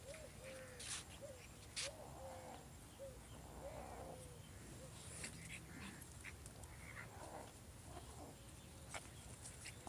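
Faint short animal calls, repeated about twice a second through the first four seconds, with a few sharp clicks.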